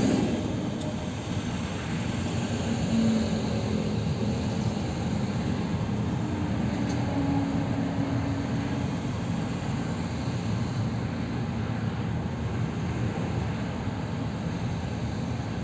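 Steady road and engine noise heard from inside a moving car's cabin: tyre rumble with a low engine hum underneath.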